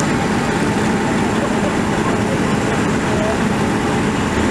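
Fire apparatus diesel engines and pumps running steadily under load, supplying an aerial ladder's master stream: a loud, even din with a constant low hum.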